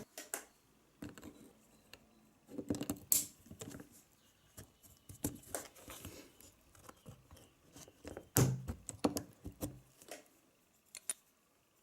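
Irregular light metallic clicks, taps and scraping of small engine parts being handled as the cylinder sleeve is pulled out of a two-stroke nitro model engine.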